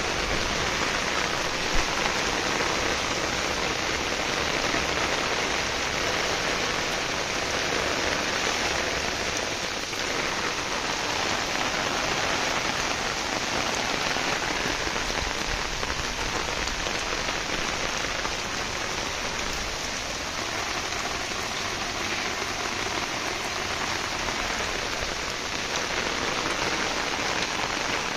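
Heavy rain pouring down steadily, a dense, even hiss of countless drops, with one sharper tap about two seconds in.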